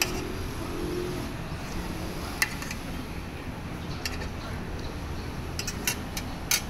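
Several short clinks and scrapes of a metal fork and spoon against a stainless steel compartment tray, the loudest near the end, over a steady low background hum.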